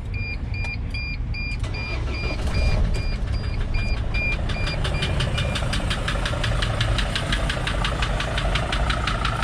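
2005 Mercedes Sprinter diesel engine started and idling, with a fast, regular knock that sounds like a belt hitting something but which the owner has traced to the engine. A dashboard warning chime beeps about three times a second over it, then stops about five and a half seconds in.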